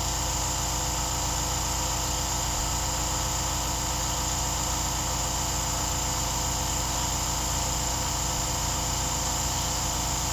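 Steady mechanical drone and hiss, unchanging at a constant level, with several fixed tones in it.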